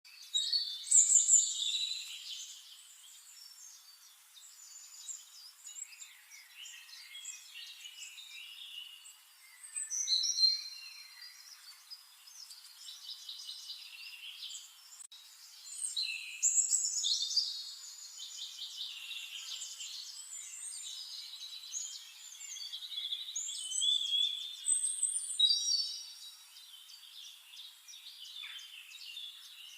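Small songbirds singing, several overlapping chirps and trills in high-pitched phrases, with louder bursts about a second in, near ten seconds, around sixteen seconds and near twenty-five seconds.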